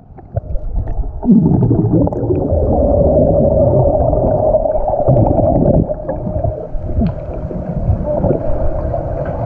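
Muffled underwater sound through a GoPro's waterproof housing: swimmers' exhaled bubbles and churning water, with a steady hum over it that gets louder about a second in.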